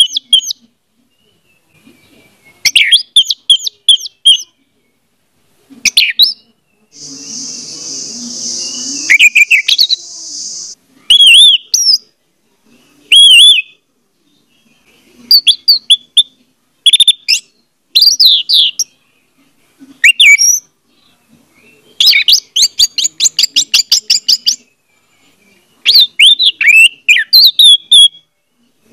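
Orange-headed thrush singing: short, high, varied whistled phrases with pauses between them. A hiss comes about a quarter of the way in, and a fast rattling run of repeated notes comes about three-quarters through.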